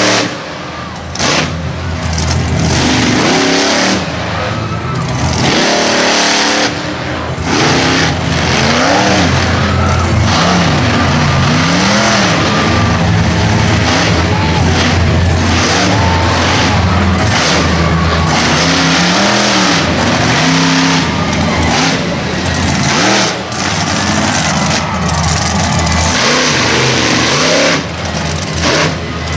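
Monster truck engine revving hard again and again, its pitch rising and falling as the truck drives.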